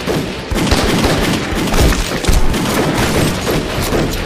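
Dense gunfire from a pistol battle: many overlapping shots in quick succession, with a few louder reports standing out.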